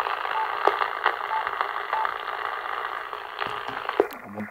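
Radio receiver hiss and static from a Yaesu transceiver's speaker tuned to 27.555 MHz upper sideband, with a few sharp crackles and three short high beeps in the first two seconds. A low buzzing tone comes in near the end.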